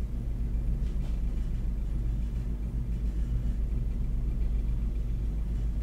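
Steady low rumble of a Redmax bench-burner torch flame running without a break while glass is heated in it.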